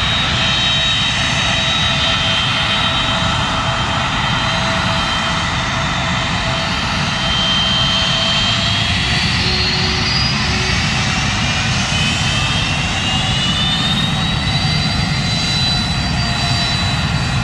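Jet airliner engines running loud and steady, a dense roar with a high whine over it that rises in pitch about halfway through and again near the end.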